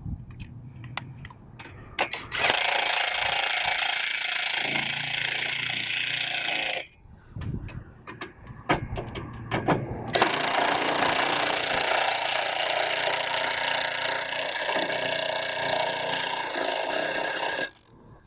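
Power impact wrench running in two long bursts, the first about four seconds and the second about seven, tightening the sway bar link bolts, with a few metallic clicks and knocks between the bursts.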